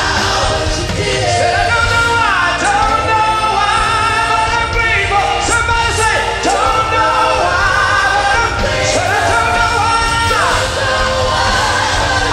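Live gospel music: a male lead singer belting and ad-libbing with long sliding runs over backing singers and instrumental accompaniment with a steady, heavy bass.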